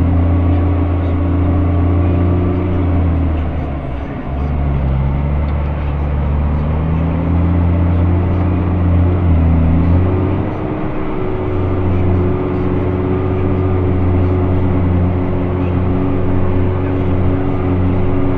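JCB Fastrac 3230 Xtra tractor's six-cylinder diesel engine running under way, heard loud from inside the cab. Its note drops about three seconds in, dips again near ten seconds, then rises and holds steady.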